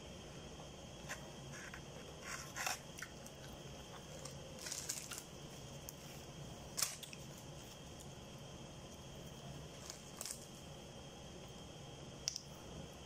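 Eating sounds of a person eating chicken with her fingers: scattered short clicks and smacks of chewing and of handling the food, a few each few seconds, over a faint steady hum.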